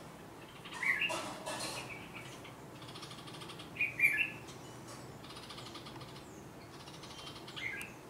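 Red-vented bulbul giving three loud, short calls: about a second in, around four seconds in, and near the end. These are the parent's scolding alarm calls at a person close to its nest of chicks.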